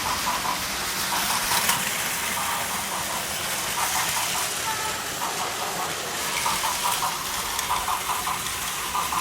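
Battery-powered Plarail toy trains running on plastic track: a steady whirring rattle with repeated clusters of short clicks.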